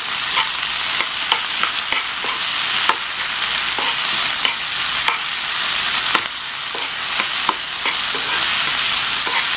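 Sliced onion, tomato and green chilies sizzling in hot oil in a small frying pan while a spatula stirs them, with frequent light clicks and scrapes of the spatula against the pan.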